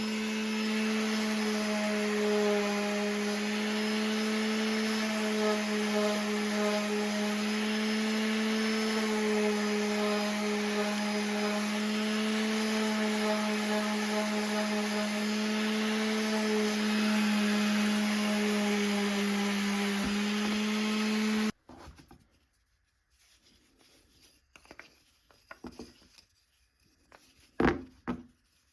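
A power tool's electric motor running steadily on wood, with a constant hum, then switched off abruptly about 21 seconds in. A few sharp wooden knocks follow near the end.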